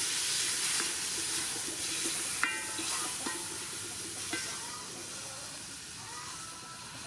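Coconut milk sizzling and steaming as it hits a hot pot of fried long beans and onion, stirred with a wooden spoon; the hiss slowly dies down.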